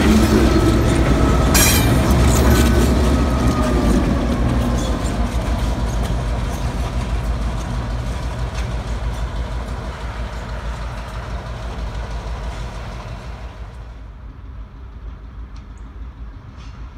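EMD GP38 diesel-electric locomotive running as it passes close by, its low engine sound loudest at first and fading steadily over about fourteen seconds as it moves away. A few sharp clicks from the wheels on the track come in the first couple of seconds.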